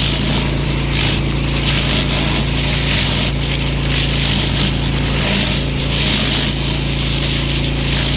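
Pressure washer running steadily, with the hiss of its water jet swelling and fading every second or so as the spray sweeps back and forth over a hard surface.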